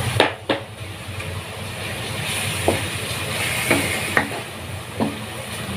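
Chicken, Chinese sausage and wood ear mushrooms sizzling in a wok with a steady hiss. A wooden spatula knocks and scrapes against the pan about six times as the mix is stir-fried.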